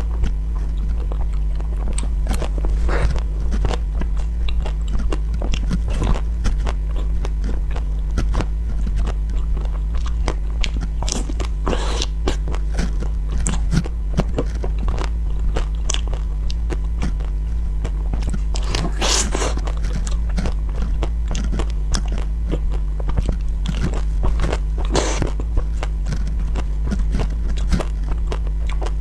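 Close-up eating of chocolate-coated marshmallow cakes: bites, chewing and the coating being broken apart, as many small clicks with a few longer crackly stretches. The strongest comes about two-thirds of the way through. A steady low hum runs underneath.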